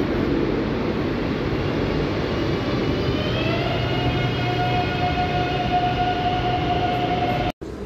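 Madrid Metro train pulling out of an underground station: a steady rumble of wheels on rail, with the electric whine of the traction motors rising in pitch from about three seconds in and then holding steady as it gathers speed. The sound breaks off abruptly near the end.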